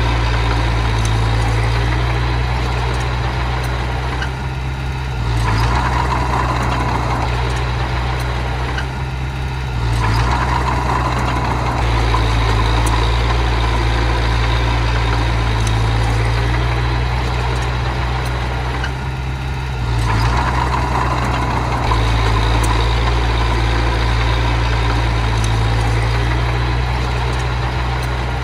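Heavy earthmoving machine's engine running continuously. Its note dips and then picks up again several times, every few seconds to ten seconds or so.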